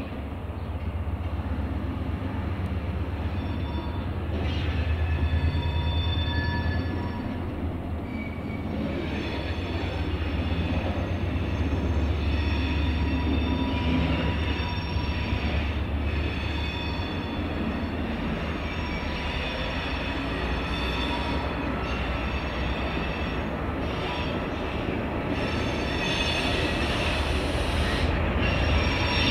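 A Class 88 bi-mode locomotive runs slowly on its diesel engine with a steady low drone. High wheel squeal from the flask wagons on the curved track comes and goes over it, and the train gets louder near the end as it comes closer.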